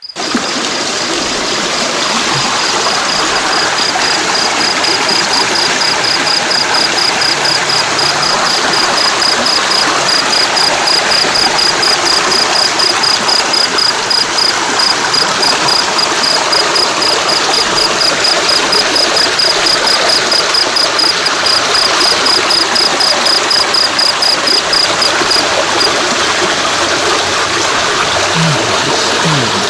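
Water flowing steadily over a stream bed, a continuous even rush. A high, evenly repeated chirping runs over it and stops about 26 seconds in.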